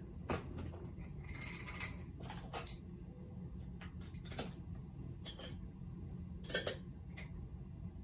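Scattered light clinks, taps and a short scrape of painting tools being handled while ivory black and white acrylic paint are mixed on a palette. The sharpest clink comes late on.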